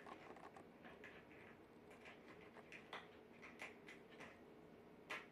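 Faint, irregular clicks and ticks as a shiba inu puppy chews and noses a small toy, over low room hum. The sharpest click comes near the end.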